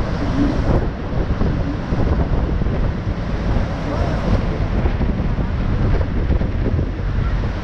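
Wind buffeting the camera microphone over the steady rush of the American Falls and the churning river at their base.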